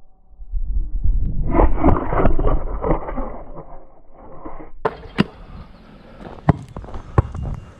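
Rushing, rumbling handling noise on a camera mounted on a basketball as it is tossed, lands and is grabbed; it sounds dull and cuts off suddenly about five seconds in. Then footsteps crunch on a gravel driveway, with a few sharp clicks.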